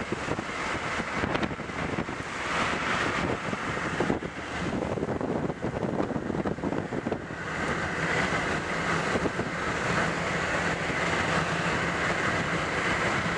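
Car travelling along a road: continuous road and engine rumble with wind on the microphone, and a steadier hiss setting in a little past halfway.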